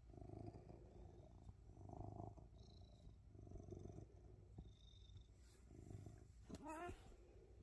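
Domestic tabby cat purring softly, the purr swelling in even rounds about every second and a half. Near the end there is a short, wavering, pitched sound.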